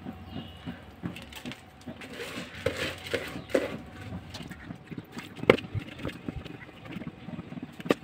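Kabsa cooking liquid boiling hard in a pan: bubbles popping and spitting irregularly, with one sharper click about five and a half seconds in.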